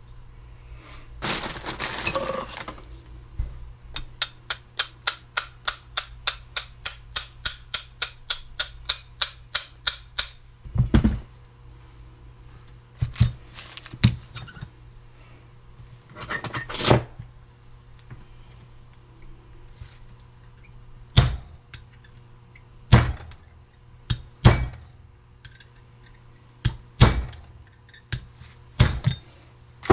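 Ball-peen hammer knocking a steel pin into a Ford tractor leveling box's shaft. A brief rattle comes about a second in, then a quick run of light taps, about four a second, then about nine heavier strikes a few seconds apart.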